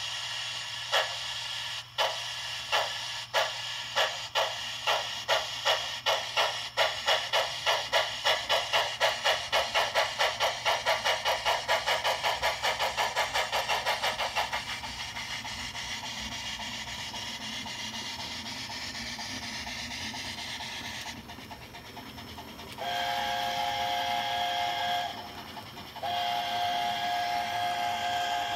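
Steam-locomotive sound from the sound decoder in a brass O-scale Garratt model: a hiss, then exhaust chuffs that start about a second in and quicken from about one to about four a second as the model gets under way. The chuffs stop about halfway through, leaving a steady hiss, and near the end come two long whistle blasts.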